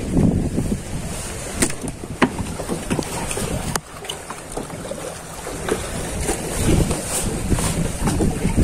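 Wind buffeting the microphone and water lapping against a small wooden boat, with a few sharp clicks scattered through.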